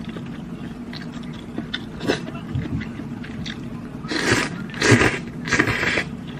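Eating hot and sour sweet potato noodles: quiet chewing, then three loud slurps as the noodles are sucked up from the bowl in the second half.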